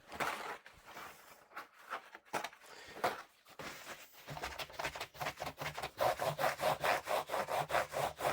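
Scrubbing a dirty laptop's casing clean by hand, rubbing back and forth in repeated strokes that settle into a quick, steady rhythm of about four a second and grow louder in the second half.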